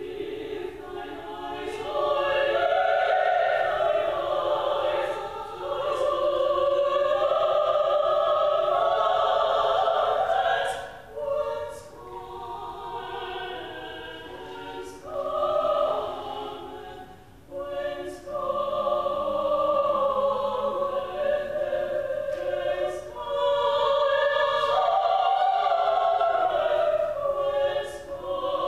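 A small vocal ensemble of three singers singing in parts, with long held notes in phrases and short breaks between them, about eleven, seventeen and twenty-five seconds in.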